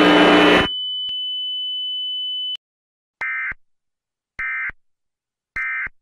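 A loud, noisy mix with a steady high-pitched pure tone beneath it cuts off under a second in, leaving the pure tone alone until it stops at about two and a half seconds. Then come three short, identical data bursts about a second apart: the Emergency Alert System end-of-message signal that closes a mock alert.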